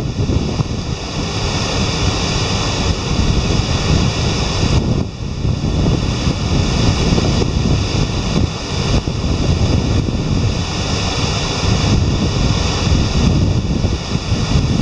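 Steady rushing roar of river water pouring through the Jim Woodruff Dam's spillway gates into churning white water below, the gates opened unusually wide for high flow.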